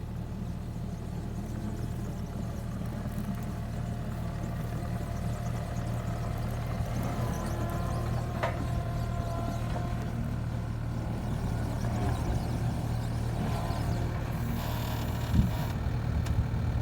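Skid steer engine running steadily and slowly getting louder, with a sharp click about halfway and a low thump near the end.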